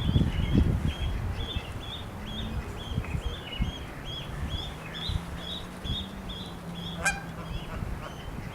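Goslings peeping, short high calls about twice a second, with a single goose honk about seven seconds in, over a low rumble.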